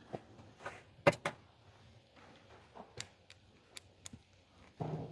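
Light clicks and knocks of small metal lock parts being handled as a cabinet cam lock housing is worked out and set beside its replacement, the loudest a little over a second in, with a brief rustle near the end.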